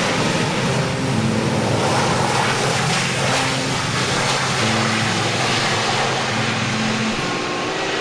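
Steady jet-engine noise from a NAM Air Boeing 737-500 rolling out on the runway after landing. Background music with a low bass line that steps from note to note plays underneath.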